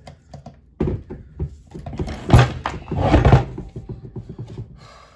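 Thumps and clattering as a hoverboard's hub-motor wheel and its wired circuit board are handled and set down on a wooden table, the loudest knock about two and a half seconds in.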